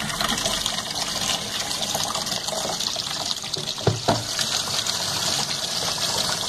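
Water pouring from the soap dispenser inlet of a Colormaq Pioneer washer onto its agitator as the tub fills for the first time, a steady splashing flow. About four seconds in come two brief knocks as the plastic soap dispenser drawer is pulled open.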